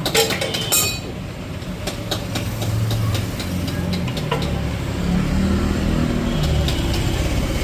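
A motor vehicle engine running steadily, its pitch shifting now and then, with a few sharp clicks in the first second.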